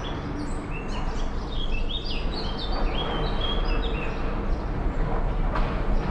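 Swallows twittering: a quick run of short, high chirps over a few seconds, against a steady low rumble of background noise.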